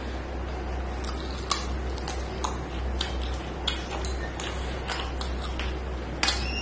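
Close-up eating sounds of rice and curry eaten by hand: wet chewing, lip smacks and sharp mouth clicks at irregular spacing, a few a second, with a steady low hum underneath.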